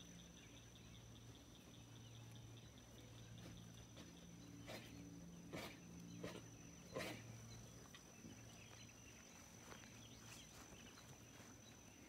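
Near silence: sheep grazing, with a few soft crunching clicks about five to seven seconds in. Faint insect chirping runs through the first few seconds, with a faint low hum underneath.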